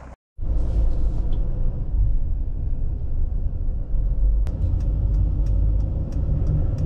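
Steady low rumble of road and engine noise heard from inside a Mercedes camper van while it drives, starting abruptly after a split-second gap. Faint, evenly spaced ticks join in about four and a half seconds in.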